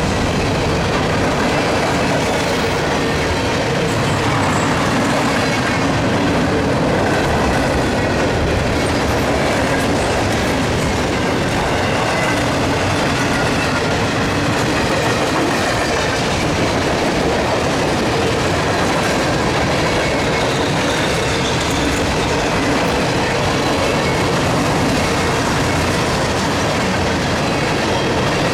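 Freight cars of a CSX train rolling past, steel wheels running on the rail joints with a steady loud roar and faint wheel squeal.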